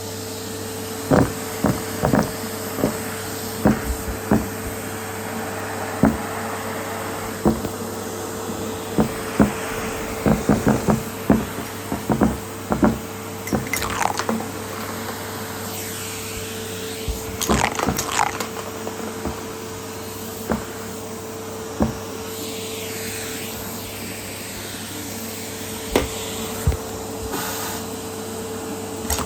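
Henry canister vacuum cleaner running with a steady hum. Irregular clicks and knocks are heard over it throughout, as the hose and wand are worked over the floor picking up pom-poms.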